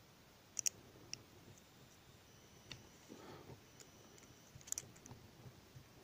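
A few faint, scattered clicks of a thin metal needle touching the plastic gears of a microwave turntable motor's opened gearbox while the gears are oiled.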